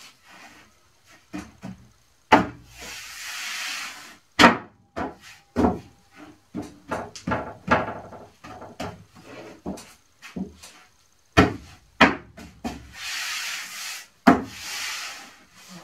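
Plywood countertop being worked into place between plywood walls: a run of sharp wooden knocks and thumps, with two longer stretches of scraping as the board rubs against the wood, one a few seconds in and one near the end.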